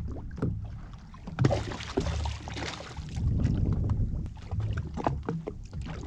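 Wind buffeting an action-camera microphone on a drifting jetski, with water slapping against the hull and short clicks and splashes. A louder rush of noise comes about a second and a half in.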